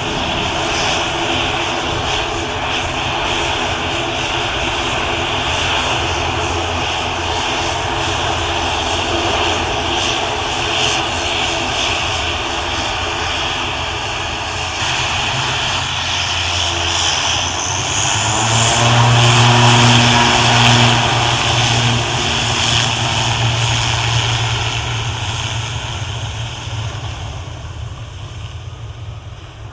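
ATR 72-600 turboprop airliner at takeoff power, its two Pratt & Whitney PW127M engines and six-blade propellers giving a loud, steady drone with a hissing whine above it. It grows loudest about two-thirds of the way through, then fades away.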